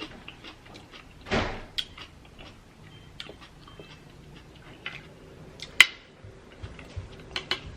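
Close-miked eating of green-lipped mussels and clams: scattered small clicks and taps of shells, with a short wet burst about a second and a half in and one sharp clack near six seconds.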